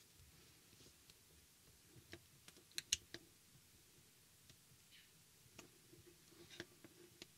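Faint scattered clicks and taps of fingers and fingernails on the small plastic-and-metal body of a Fitbit Alta fitness tracker as it is squeezed and turned in the hands, with a sharper pair of clicks about three seconds in.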